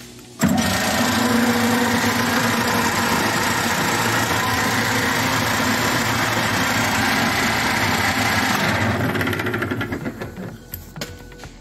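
Lin Huan Machinery Co metal lathe started up: the motor and drive come on abruptly about half a second in and run steadily and loudly, then spin down over a second or so near the end.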